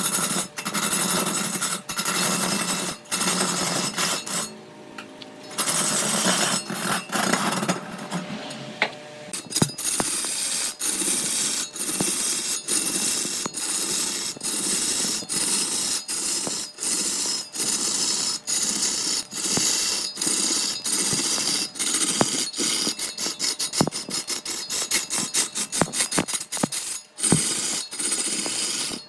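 Woodworking tools working on wood: a loud, noisy working sound broken by short, regular knocks or breaks about twice a second, dipping briefly a few seconds in.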